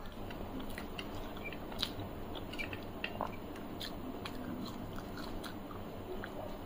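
Close-miked chewing: soft wet mouth clicks and small crunches scattered irregularly.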